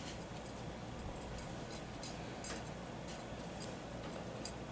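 Faint small ticks and rustles of a metal crochet hook and thread being worked by hand, with one sharper click near the end.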